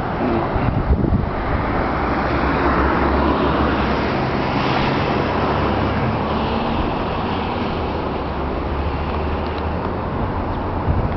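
A motor vehicle running steadily for several seconds, engine hum with road noise, swelling toward the middle, with some wind on the microphone.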